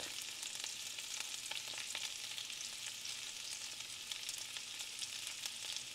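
Cubed potatoes sizzling steadily in hot bacon grease in a cast iron skillet, a high even hiss with faint scattered pops.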